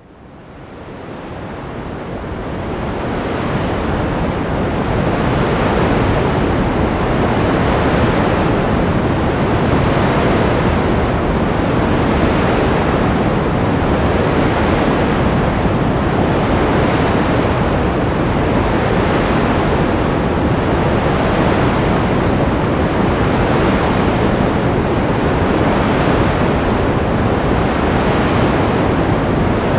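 Ocean surf: a continuous wash of breaking waves, fading in from silence over the first few seconds, then holding steady with regular gentle surges.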